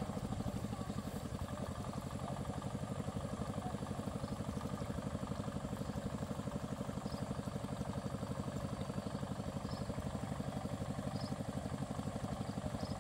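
A small engine running steadily at idle, with a rapid, even chugging beat that does not change.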